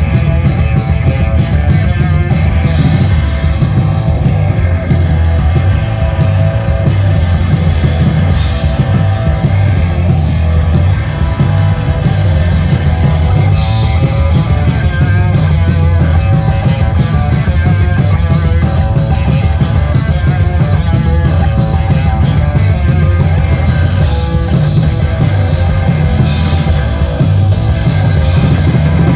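Heavy rock band playing live and loud, with electric guitars and a drum kit.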